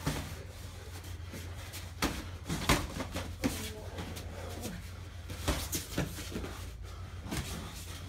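Boxing gloves landing in a sparring exchange: a handful of sharp slaps and thuds, bunched about two seconds in and again around five and a half seconds, with short hard exhalations from the fighters between them.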